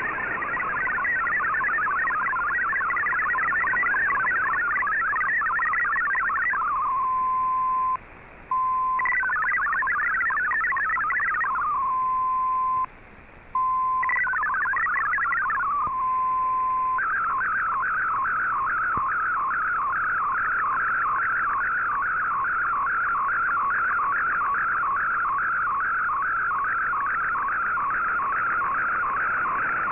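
Shortwave MFSK digital data signal from the receiver: a warbling multi-tone stream of text data, broken three times by a steady single tone with two brief dropouts, then, a little over halfway through, a fast evenly repeating warble as an image is sent in MFSK picture mode.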